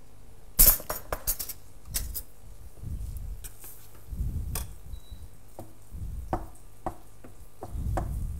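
Kitchen utensils clinking and clacking against pots, pans and dishes in a scattered series of sharp knocks, the loudest about half a second in, with dull low thumps between.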